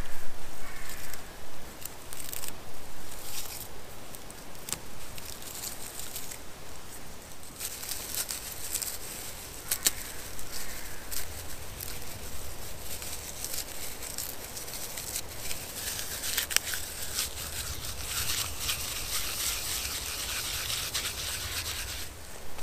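Dry clematis bark being rubbed, torn and crumpled by hand into tinder: a run of rustling, crackling and tearing with scattered sharp ticks.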